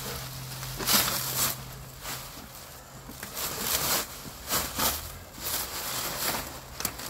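Black plastic sheeting rustling and crinkling in irregular bursts as it is pulled off a pallet of plastic tubs, the loudest burst about a second in, with a low steady hum underneath.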